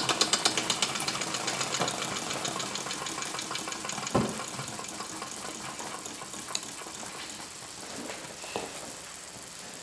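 Wilesco toy steam engine slowing down: its quick exhaust puffs, about six a second, fade out within the first second, leaving a steady hiss of steam. A single knock comes about four seconds in, with a few faint clicks later.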